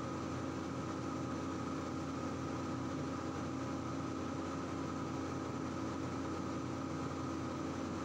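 Steady hum and hiss with several held tones, even throughout; no cue or ball strikes stand out.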